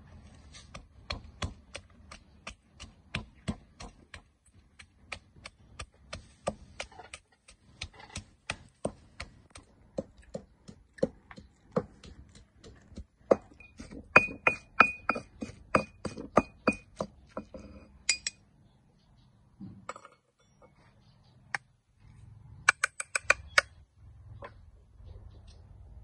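Pestle pounding garlic and red chillies in a stone mortar: steady strikes about two to three a second, many with a ringing clink off the stone, as the mix is crushed to a paste. After a pause, a short quick run of sharper clinks near the end.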